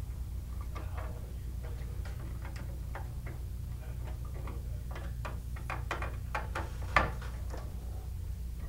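Small screwdriver working the screw terminals of a Honeywell VISTA-21iP alarm panel as wires are seated and tightened: irregular light clicks and ticks of metal on metal and wire handling, with one sharper click about seven seconds in, over a steady low hum.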